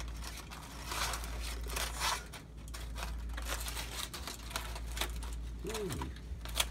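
Aluminium foil crinkling and rustling in irregular crackles, with a steel carving knife and fork scraping, as a foil-wrapped roast turkey is cut into.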